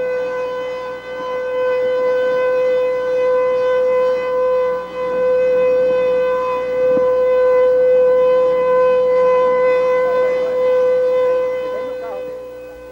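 The Jornal Liberal newspaper's traditional siren sounding one long steady tone, fading away near the end.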